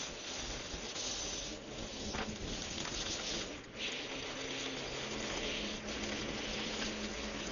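Petrol string trimmer running, its spinning line hissing steadily as it cuts grass, with a faint engine hum underneath.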